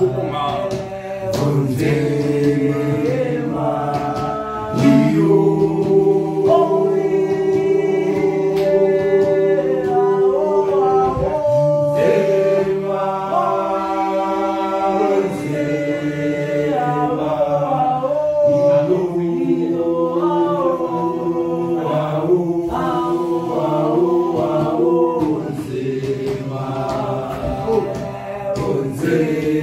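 A group of young men singing a gwijo, a South African group chant song, a cappella in several-part harmony, with long held chords.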